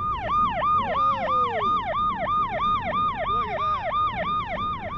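Police car siren on its electronic yelp setting: a fast rising-and-falling wail that repeats about three times a second.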